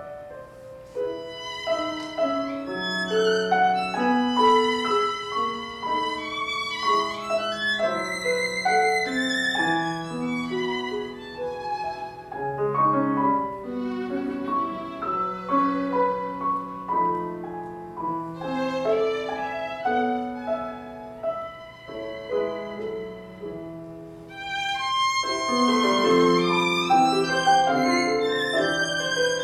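Violin and grand piano playing classical music together live, the violin carrying a melody with vibrato over the piano. The music grows louder and fuller near the end.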